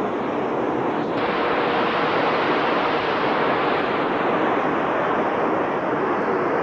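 Steady, loud rushing noise of a glass-bottle plant's forming line, where an individual-section bottle-forming machine runs with its compressed air and mechanisms.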